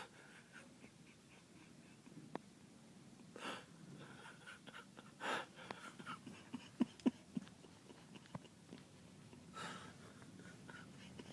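Faint breathing of a sleeping person: three soft, airy breaths a few seconds apart, with small clicks and squeaks in between.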